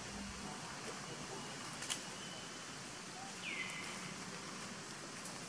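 Outdoor ambience: a steady hiss, with a sharp click about two seconds in and one short high chirp that slides down and levels off about three and a half seconds in.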